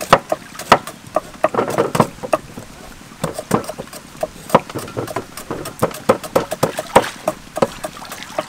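Cleavers chopping on thick wooden chopping boards: rapid, irregular knocks, several a second. Water sloshes in a basin as vegetables are washed.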